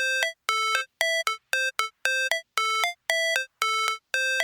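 Background music intro: a repeating synthesizer riff of short, clean electronic notes, roughly a pair every half second with brief silences between.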